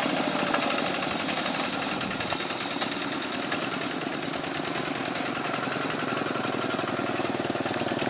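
Two-wheel hand tractor's diesel engine running steadily at a fast, even pulse while it harrows a flooded rice paddy.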